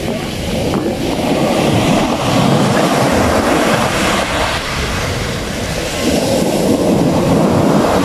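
Ocean surf breaking on the shore and washing up the beach, swelling louder twice as waves come in.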